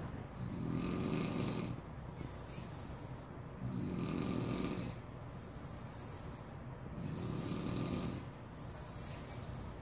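A sleeping man snoring through an open mouth: three deep snores about three and a half seconds apart, each followed by a breathy hiss as he breathes out.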